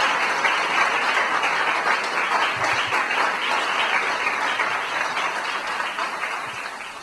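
Audience applauding at the close of a talk: dense, steady clapping that slowly dies away toward the end.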